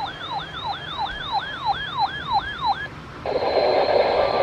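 Electronic siren yelping in quick falling sweeps, about three a second, which stops about three seconds in. A steady hiss of radio static follows.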